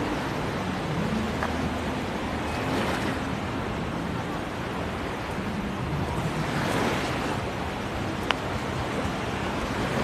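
Small surf lapping and washing up onto a sandy beach, with louder washes about three seconds in and again around seven seconds, and wind on the microphone.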